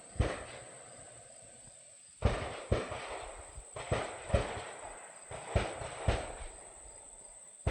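Sharp clicks or knocks, mostly in pairs about half a second apart, one pair every second and a half or so.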